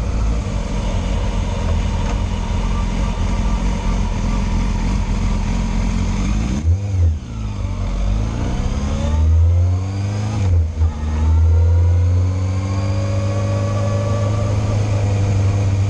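Yamaha Fazer inline-four motorcycle engine under way, with wind rushing over the microphone. About six and a half seconds in the revs fall off and pick up again through a bend, then it accelerates through several gear changes, the pitch rising between shifts.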